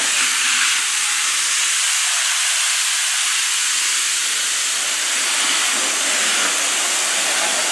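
Nilfisk hot-water pressure washer spraying through its lance onto a car's engine bay: a steady, loud hiss of high-pressure water and steam.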